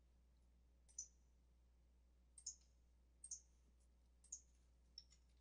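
Computer mouse clicking: about five short, sharp clicks spaced roughly a second apart, over a faint low hum.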